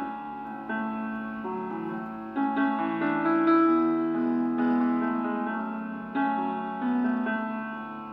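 Soft background piano music: slow sustained chords, each struck and left to fade.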